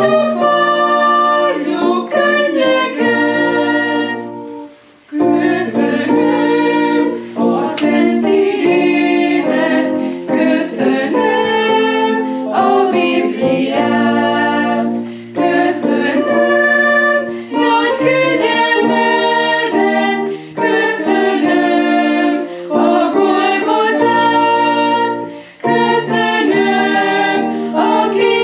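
Women's vocal group singing together, with a short break between phrases about four to five seconds in.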